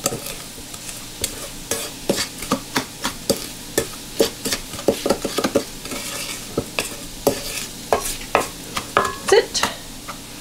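Wooden spoon stirring damp, milk-soaked panko breadcrumbs around a stainless steel mixing bowl: irregular scrapes and taps of the spoon against the metal, a couple or so each second.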